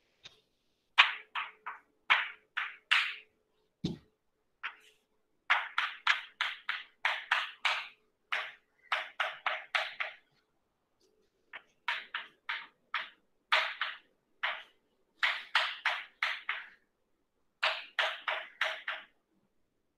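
Chalk writing on a blackboard: runs of short, sharp chalk taps and scrapes, several a second, one stroke after another as letters and symbols go up, with short pauses between the runs.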